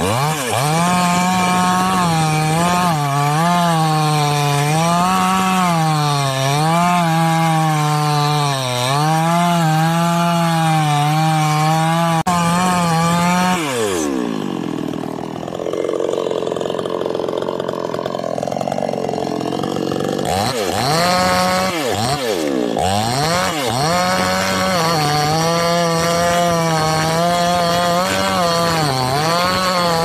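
Two-stroke petrol chainsaw cutting into a tree stump, its engine pitch sagging and recovering as the chain bites into the wood. About halfway through the engine drops off to a quieter idle for several seconds while the saw is lifted clear. It then revs up again with a couple of quick blips and goes back to cutting under load.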